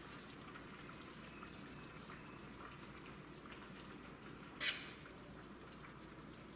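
Faint bubbling and dripping of a pot of chicken simmering under a vented lid, with one brief hiss about four and a half seconds in.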